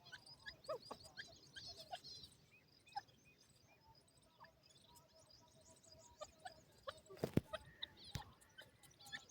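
Faint bird calls: a busy run of short high chirps for about the first two seconds, then sparse low clucking notes. A sharp knock comes about seven seconds in, and another a second later.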